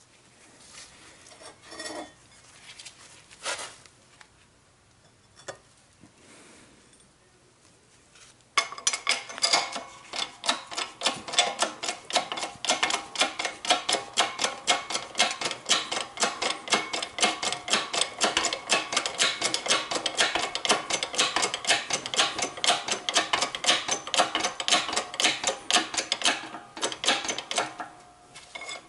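Shop press running as its ram presses a new carrier bearing onto a GM 10-bolt differential carrier through an old bearing race. A few scattered knocks while the parts are set in place, then from about eight seconds in a rapid, even clicking, about five a second, that stops shortly before the end.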